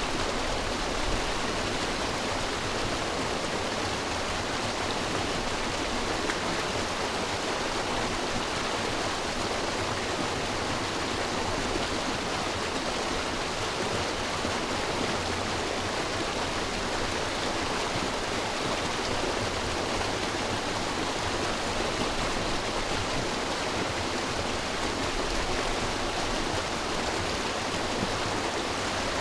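River water rushing and splashing over rocks: a steady, even rush with no breaks.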